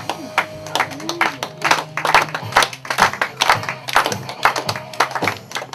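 People clapping in time, about two claps a second, over music.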